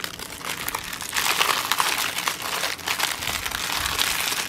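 Packaging of a paint-by-numbers kit crinkling and rustling as it is handled, a dense run of small crackles that gets louder about a second in.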